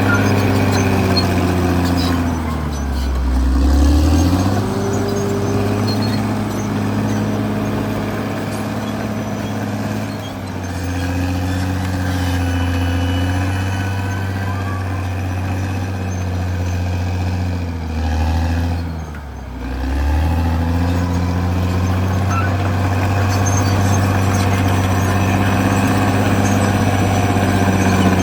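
CAT D6R XL bulldozer's diesel engine running steadily. Twice, a few seconds in and again past halfway, the engine note drops briefly in pitch and then climbs back.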